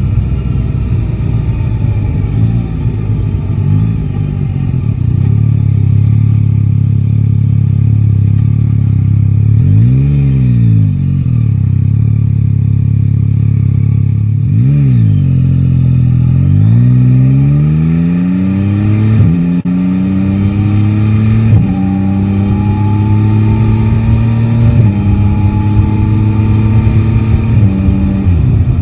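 Yamaha Tracer 9 GT's three-cylinder engine running low and steady, with a quick rev up and down about ten seconds in and again near fifteen. It then pulls away, the pitch rising and dropping back at each of four upshifts.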